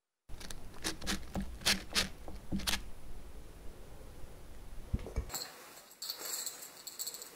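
A spoon dropping thick chocolate batter into paper liners in a metal muffin tin: a string of light clicks and knocks as the spoon touches the liner and tin. Near the end this gives way to a softer, crackly rustle.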